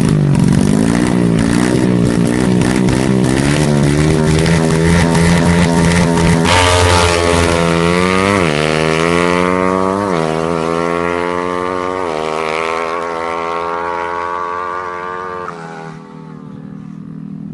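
Drag-racing motorcycle engine accelerating hard through the gears: the engine note climbs, drops back at each shift several times, then fades away.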